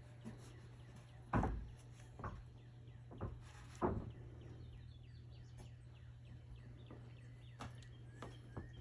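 Quiet outdoor ambience: a steady low hum with faint, scattered bird chirps, and a few soft bumps about a second and a half in and again around four seconds.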